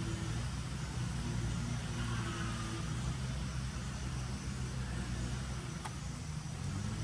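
Steady low hum of an engine running at idle, holding an even pitch, under a light hiss.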